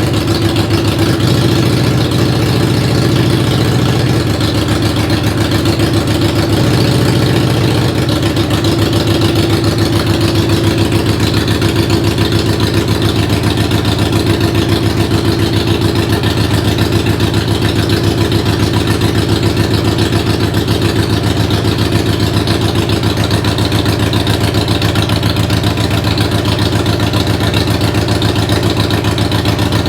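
Harley-Davidson Sportster 883's air-cooled V-twin idling steadily through newly fitted Lowbrow Customs shotgun exhaust pipes.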